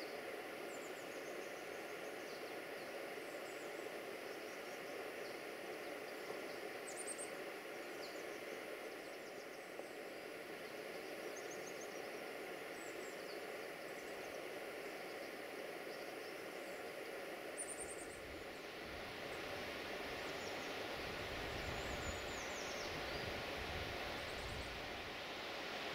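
Outdoor woodland ambience: a steady hiss with faint, scattered high bird chirps. About two-thirds of the way in, a louder rushing with a low rumble comes in.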